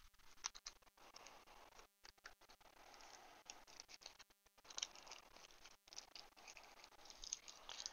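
Very faint rustling and light taps of paper and craft supplies being handled on a tabletop, almost at the level of silence.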